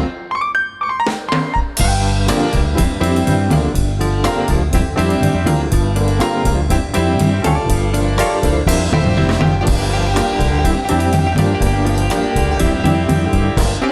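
Background music: a smooth, jazzy instrumental with electric piano or keys over a drum kit and bass, the drums and bass dropping out briefly near the start before coming back in.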